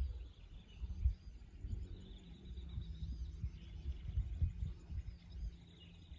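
Irregular low thumps and rumble on the microphone, with a faint, steady high-pitched background chorus.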